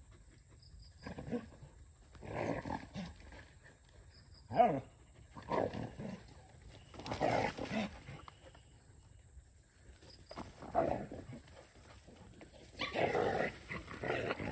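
Dogs making short growling vocal sounds, about eight bursts with quiet gaps between; the loudest comes about four and a half seconds in.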